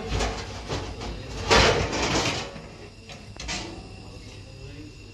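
Kitchen handling noises: short knocks and rustles, the loudest a scraping, sliding sound of under a second about a second and a half in.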